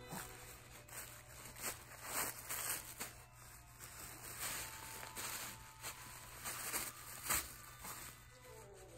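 Tissue paper rustling and crinkling in irregular bursts as a Shih Tzu tugs and noses through it, with one sharp knock about seven seconds in.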